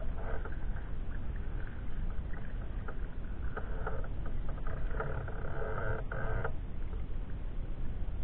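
Sea kayak being paddled: water splashing and trickling off the paddle blade in irregular spells, the longest lasting over a second about five seconds in, over a steady low rumble.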